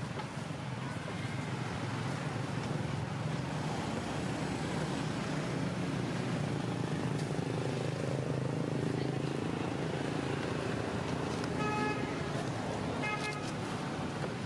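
Steady low background rumble, with two short high-pitched tones near the end.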